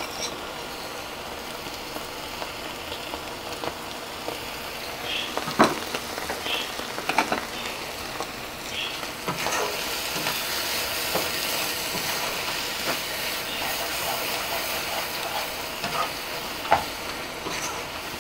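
Rohu fish roe sizzling as it fries down in oil in a nonstick pan, stirred and scraped with a wooden spatula that gives scattered clicks and scrapes. The sizzle grows louder about ten seconds in.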